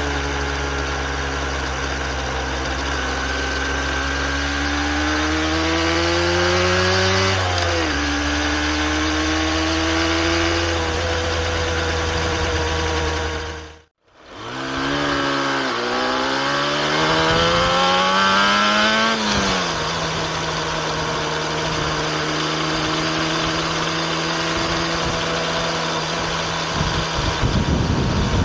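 Yamaha RZ250R's two-stroke parallel-twin engine running through its freshly overhauled expansion chambers and silencers: idling, twice revved up slowly over a few seconds and dropping back, then idling steadily. The sound fades out briefly about halfway.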